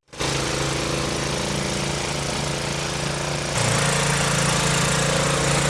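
Small gasoline engine running steadily, with a stronger rush of noise from about three and a half seconds in.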